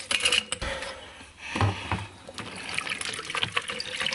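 Water trickling and pouring into a large insulated tumbler, with a few light clinks.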